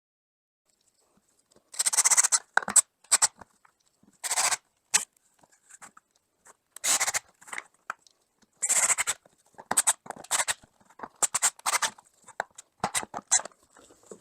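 Threaded inserts being screwed into drilled holes in wood, the threads scraping and cutting into the wood in a series of short, irregular turns.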